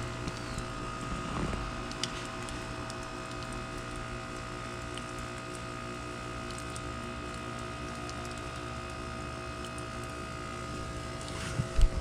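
Carrier Comfort 15 heat pump's outdoor unit running in defrost mode: a steady compressor hum with several steady tones. A couple of low bumps come near the end.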